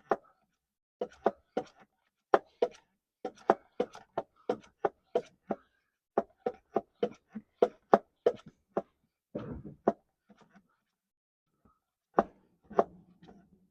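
Hand oil pump worked in quick strokes, clicking about three times a second, pushing 75W-90 gear oil into a differential filler hole. The pumping stops about nine seconds in, followed by a short rustle, and a few more clicks come near the end.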